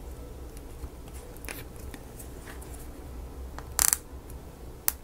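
Small miniature-kit pieces being handled: a few faint clicks and taps, with a brief cluster of sharper clicks about four seconds in and one more click near the end, over a low steady hum.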